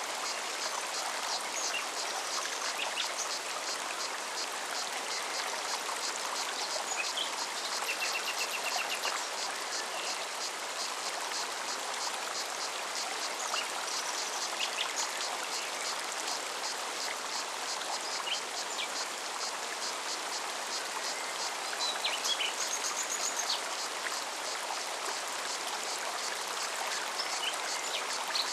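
Forest stream running steadily, with a fine rapid cicada pulsing above the water and short bird chirps, including a brief trill, scattered throughout.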